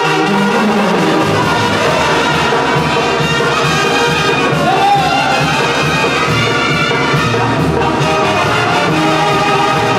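Brass band music with trumpets and trombones playing over a steady beat.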